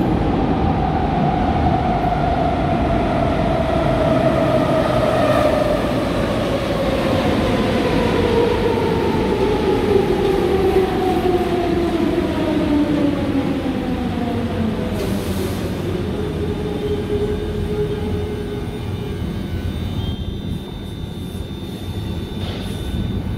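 An electric metro train pulling into an underground station and braking to a stop. Its drive whine falls steadily in pitch as it slows, over a constant rumble of wheels on rail, and settles near the end as the train halts.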